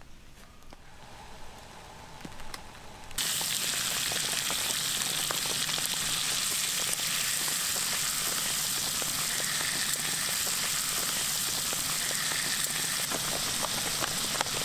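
Thin slices of meat and garlic cloves sizzling in a hot frying pan, a dense steady hiss with scattered pops and crackles that starts suddenly about three seconds in.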